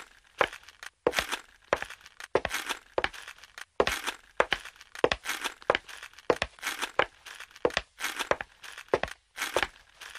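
Irregular crackling and crinkling noise in quick, uneven bursts, several a second, with short silent gaps between some of them.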